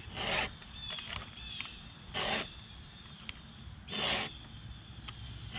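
Stihl 2-in-1 file rasping metal on metal across a chainsaw chain's cutter tooth and raker in three even strokes, about two seconds apart: a chain being hand-sharpened.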